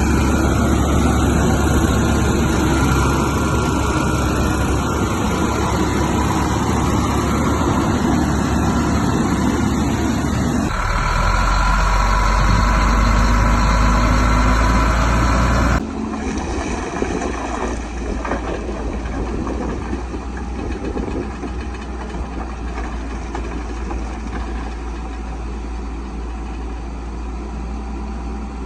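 Bulldozer's diesel engine running steadily. The sound changes abruptly about a third of the way in and drops in level just past halfway.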